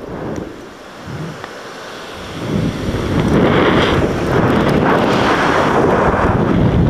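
Wind rushing over a body-mounted camera's microphone on a gorge swing. It is quieter at first and builds loud about two and a half seconds in, as the swing picks up speed.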